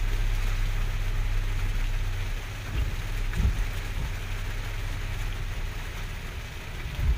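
Rain pattering on a car's roof and windshield, heard from inside the cabin, over the low steady rumble of the car's engine idling in stalled traffic.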